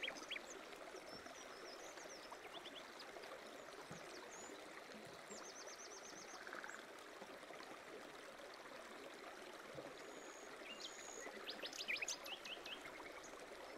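Faint birdsong, short high chirps and a quick trill, over a steady rushing noise like running water. The chirping thickens and is loudest about twelve seconds in.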